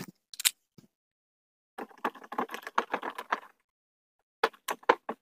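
Clicking and rattling of small metal parts as a blender's electric motor is handled and a screwdriver works on a screw in its frame: single clicks at the start, a quick run of clicks from about two to three and a half seconds in, and a few sharper clicks near the end.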